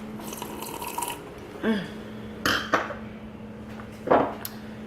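A few short clinks and mouth sounds from a wine glass and bottle of Moscato d'Asti being handled and sipped, the loudest a little after four seconds in.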